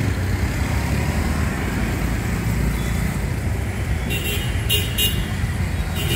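City street traffic: a steady rumble of motorbikes and cars passing, with a few short horn beeps from about four seconds in.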